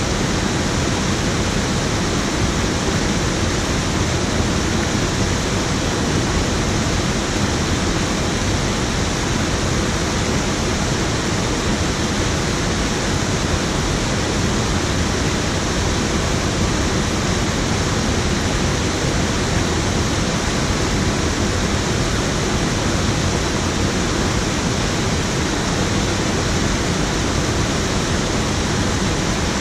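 Steady rushing of water pouring over a low weir into a river pool.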